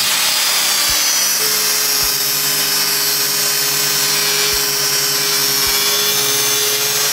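Milwaukee angle grinder running steadily as its disc cuts into the steel lid of a buried 55-gallon drum.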